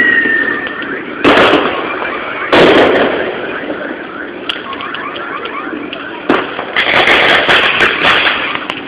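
Fireworks going off: a high whistle fades out at the start, then two loud bangs just over a second apart, each followed by a rumble that dies away. Scattered crackles follow, then another bang breaks into dense crackling near the end.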